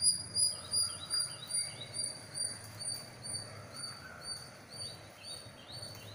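High-pitched chirps from a small animal, repeated steadily about two or three times a second and fading gradually, with fainter rising notes between them.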